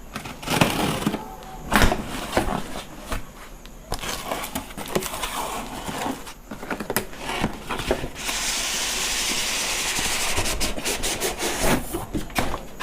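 Cardboard box being handled and opened: knocks, rustling and scraping, with a steady scraping hiss lasting about two seconds a little past the middle.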